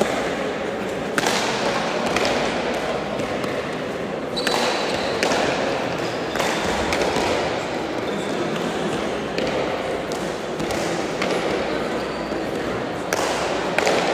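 Hand pelota rally: the hard leather pelota cracks sharply off bare hands and the front wall every few seconds, ringing in the large indoor court, over a steady murmur of voices.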